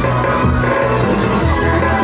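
Loud dero dance music in the cha-cha ('goyang caca') style, with a steady, repeating bass beat.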